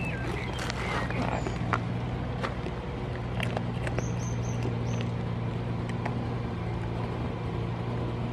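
A steady low motor drone, with small clicks and rustles as goats nibble at a hand and sleeve. A quick run of four short high chirps about four seconds in.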